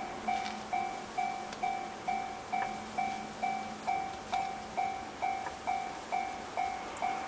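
Japanese railway level-crossing warning bell ringing steadily, a little over two dings a second, each one fading quickly. Underneath is the faint running sound of an approaching electric train.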